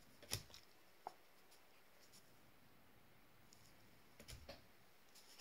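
Near silence with a few faint clicks and light taps: one just after the start, one about a second in, and a short cluster near the end.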